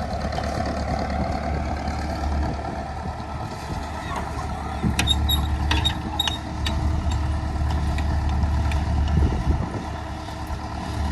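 A steady low mechanical rumble with a run of sharp clicks and knocks between about five and seven seconds in.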